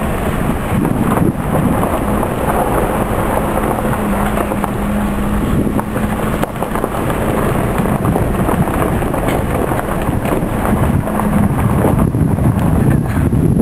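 Car driving up a mountain road: its engine runs with a steady low hum under continuous road and wind noise. The hum drops out a little before the end, while the rumble grows louder.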